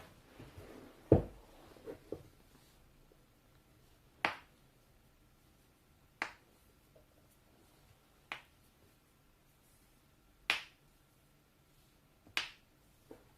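A person's joints cracking: a series of sharp pops, the loudest about a second in after a short rustle of movement, then single cracks roughly every two seconds.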